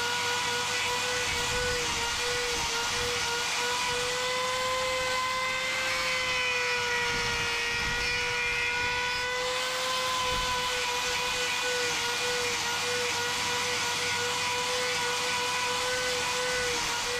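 Angle grinder fitted with a hoof-trimming disc, running at a steady high whine as it grinds back the horn of an overgrown cow claw. The pitch wavers slightly as the disc bites into the hoof.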